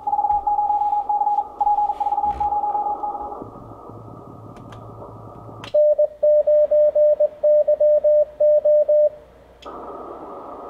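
Morse code (CW) from an Icom IC-7300 HF transceiver's speaker: a station's keyed tone over band hiss for the first three seconds or so. About six seconds in, the receiver mutes and a lower, louder sidetone keys out the operator's own reply for about three seconds. The band hiss then comes back.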